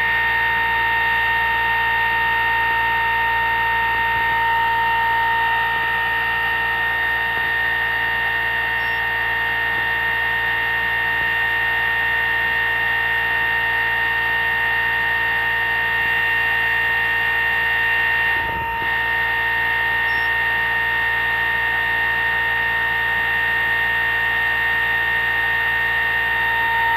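Pulse motor running on four drive coils at 12 volts: a steady whine with several overtones, unchanging in pitch, that dips briefly about two-thirds of the way through.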